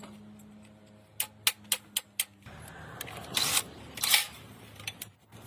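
Workshop handwork on metal: about five sharp clicks or taps in quick succession over a low steady hum, which stops about halfway through, then two short hisses.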